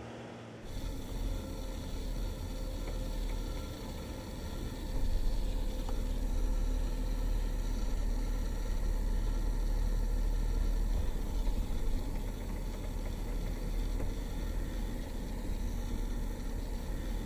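Cabin noise inside a 2019 Mercedes-Benz G-Class crawling along a dirt forest track: a steady low engine and road rumble, louder from about five seconds in.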